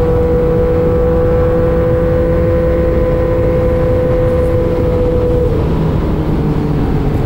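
Motorcycle engine running steadily at high revs under heavy wind rush while riding. About five and a half seconds in, the engine note drops to a lower pitch.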